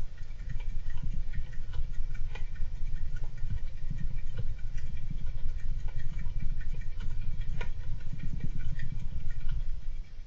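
Golden hamster scrabbling about its cage: a dense run of small scratches and clicks over a low rumble, which stops abruptly near the end.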